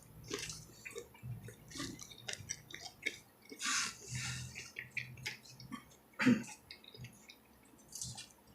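A person chewing fried chicken close to the microphone, with wet smacking and many small mouth clicks.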